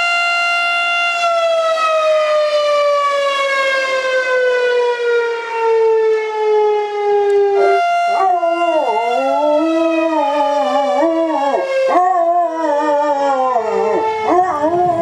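Electronic intro music: a sustained tone with many overtones slides slowly down in pitch, and about eight seconds in a second, wavering line bends up and down over it.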